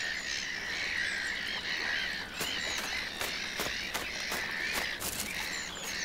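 Black-headed gull colony calling: many short, overlapping squawking calls from a crowd of gulls, with sharp clicks mixed in from about two seconds in.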